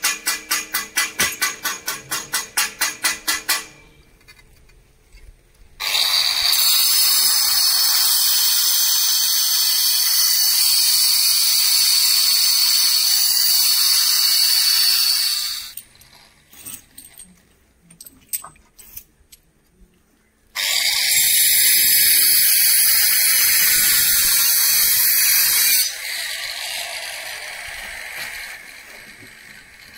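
Power cutter or angle grinder cutting stone or tile with a loud high squeal, in two long cuts of about ten and five seconds. The second cut fades away slowly near the end. Before the first cut comes a quick regular pulsing, about five a second.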